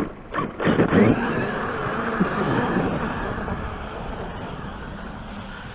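Traxxas XRT electric RC monster truck on paddle tires driving hard through deep powdery snow, a rushing noise of motor and flung snow that starts about half a second in and slowly fades as the truck moves away.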